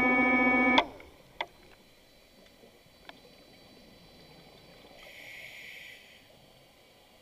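Synthesizer background music cuts off abruptly with a click under a second in. It gives way to faint underwater ambience from the diving camera, with a couple of soft clicks and a short hiss of about a second past the middle.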